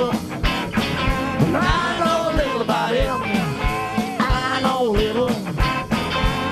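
Live rock band playing: a Stratocaster-style electric guitar plays a lead line that bends and wavers in pitch, over bass and a steady kick-drum beat.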